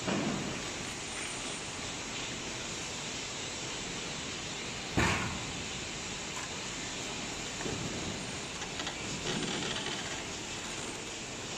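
Plywood hot press line's roller conveyor and loader running with a steady mechanical hum. A sharp clunk comes about five seconds in, and a few lighter knocks follow later as sheets are moved.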